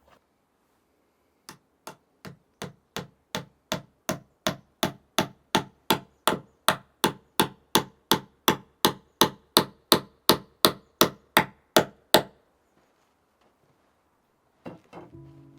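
A steady series of about thirty sharp knocks, roughly three a second, that grow louder and then stop abruptly.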